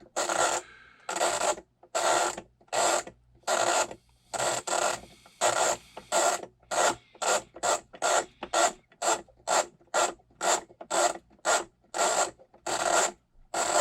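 Panasonic RC-6234 flip clock's time-setting mechanism being wound forward by hand over and over, each turn a short mechanical whirring rasp as the number cards flip over. The turns come in quick succession, speeding up to about two or three a second in the middle.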